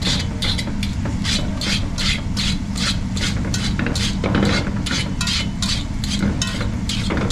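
Thick cornmeal-and-okra cou cou being stirred in a pot, scraping in a quick, even rhythm of about three strokes a second, over a steady low hum.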